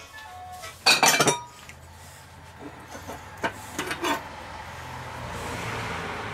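Crockery and a metal ladle clattering: a loud burst of clinks about a second in, then a few separate clinks, as a plate and ladle are handled beside a cast-iron Dutch oven. Near the end a soft, swelling scraping noise comes in as the ladle is pushed through the thick sausage stew.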